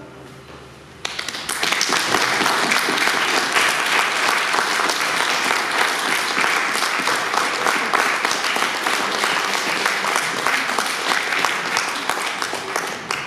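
Audience applauding, starting suddenly about a second in and stopping near the end.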